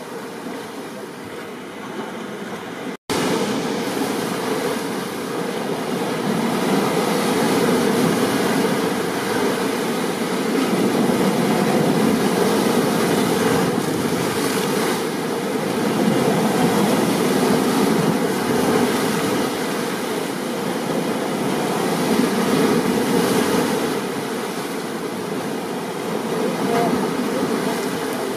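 Steady rain and ocean surf ambience, a dense even rushing that swells and eases slowly every several seconds. The sound cuts out completely for an instant about three seconds in.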